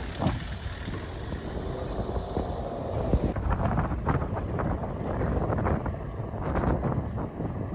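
Outdoor ambience with wind rumbling on the microphone, with scattered short knocks and clicks from about three seconds in.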